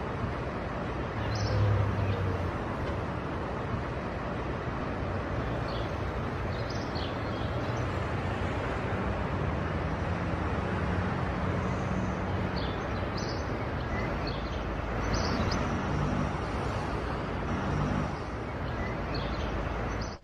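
Steady distant city traffic noise, with a few short high chirps now and then.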